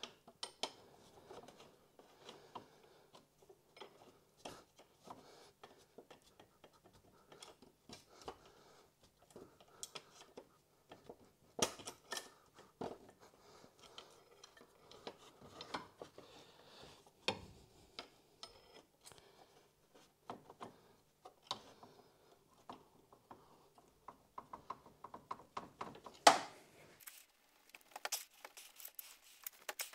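Hand tools clicking and clinking against metal parts around a car's AC compressor, irregular, with a few louder knocks, the loudest near the end. A faint steady hum lies underneath and stops shortly before the end.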